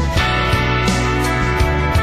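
Instrumental passage of a pop-rock song, guitar over a steady drum beat, with no singing.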